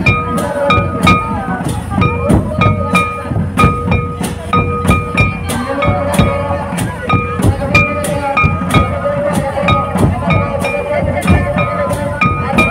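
Live folk dance music: drums struck in a quick steady rhythm, with a high instrument playing short repeated notes over a long held tone.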